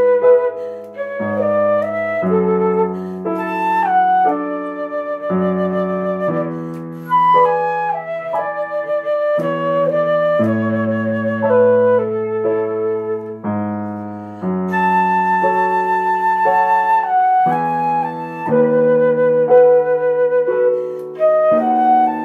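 Concert flute playing a slow, legato melody of long held notes, accompanied by digital piano chords and bass notes, in a flute-and-piano duet of an arioso.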